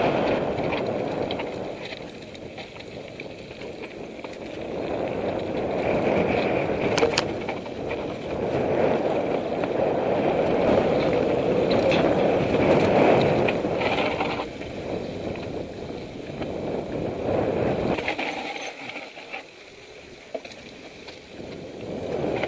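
Mountain bike riding fast down a loose gravel singletrack, heard from a helmet camera: a rushing noise of wind and tyres on stones that swells and eases with speed, with occasional sharp clicks and rattles from the bike. It goes quieter near the end.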